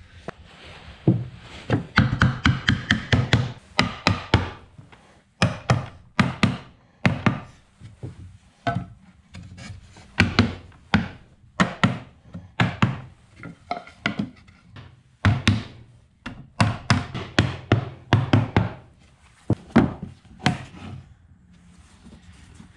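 Claw hammer striking pallet-wood shelf boards, in quick runs of sharp blows several a second with short pauses between runs.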